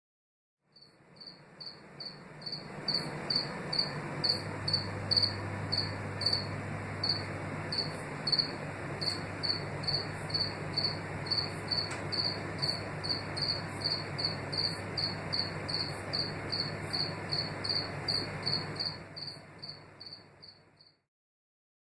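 House cricket (Acheta domesticus) chirping: a steady run of short, high chirps at about two a second, over a low background hiss and hum. It fades in just after the start and stops shortly before the end.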